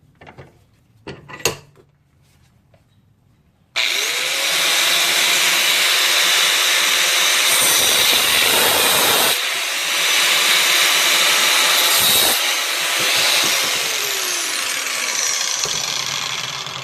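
A power cutting tool slicing through a 2.5-inch exhaust pipe: a loud, steady grinding noise that starts about four seconds in, dips briefly partway, and stops shortly before the end, after a few light clicks.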